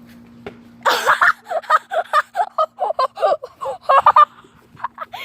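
A child's voice in a rapid string of short, high, loud vocal outbursts, laughing or shrieking without words, starting about a second in and stopping a little after four seconds.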